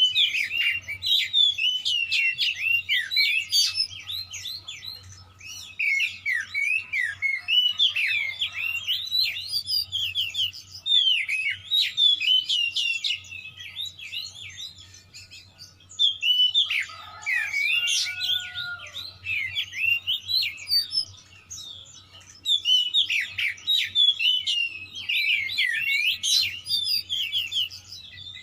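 Magpie-robin (kacer) singing hard in phrases of rapid, sharp, sweeping notes, about five phrases with short pauses between them. It is the agitated 'nembak' fighting-mood song, full of mimicked calls ('full isian'). A faint low hum runs underneath.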